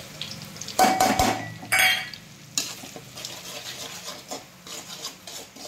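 Steel spatula clanking and scraping against a metal kadhai while stirring masala frying in oil. Two loud ringing metal clanks come about one and two seconds in, then a sharper knock and lighter steady scraping.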